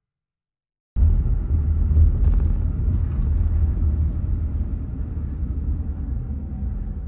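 Low road and engine rumble inside a moving car's cabin, starting suddenly about a second in after silence and slowly easing off.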